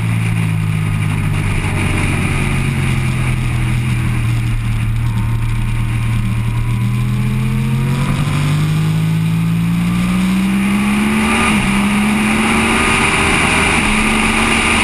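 Motorcycle engine heard from an onboard camera at track speed, with wind rushing over the microphone. The engine note holds steady through the bend, then climbs as the bike accelerates. It dips briefly twice near the end, as at gear changes.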